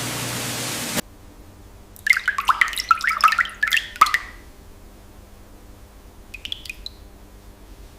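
Running tap water that cuts off about a second in, then a quick spatter of drips and splashes for about two seconds as water runs off a rinsed spoon, with a few faint drips near the end.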